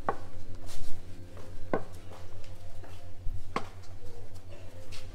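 Three sharp knocks about two seconds apart, each with a brief ring, over a steady low hum.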